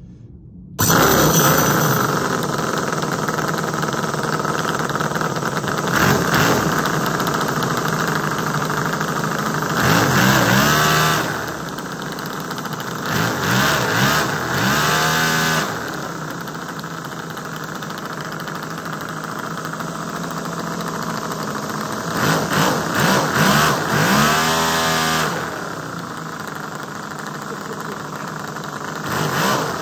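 Toyan X-Power miniature V8 four-stroke nitro model engine starting up about a second in, then running and being revved up and back down several times. It is running rich while still being run in.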